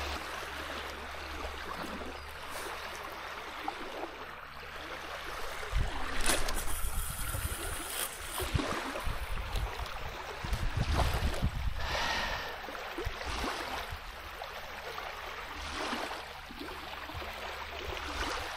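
Small waves lapping and washing onto a sandy riverbank in a steady hiss, with a few low rumbling bumps at times.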